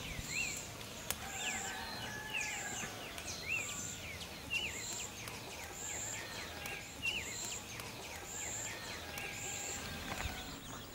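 Outdoor rural ambience: small birds chirping over and over, with a high, short call repeating about once a second.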